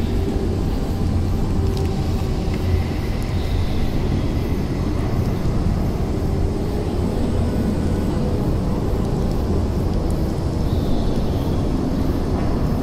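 Dark ambient drone music: a steady, deep rumble under a noisy haze, with faint sustained tones and thin high whines drifting above it.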